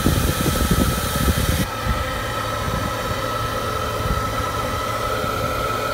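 A 130 CFM high-flow electric cooling fan running, blowing air through a duct onto a truck's alternator: a steady rush of air with a steady whine, over an engine running underneath.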